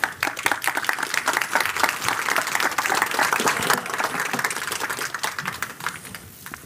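Audience applauding. The clapping starts all at once and dies away near the end.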